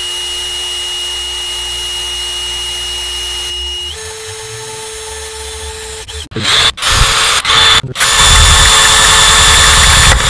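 Power drill running steadily with a whine that steps up in pitch about four seconds in, then cutting into a stainless steel Apple Watch's very hard display glass: a few short stop-start bursts, then loud continuous grinding near the end.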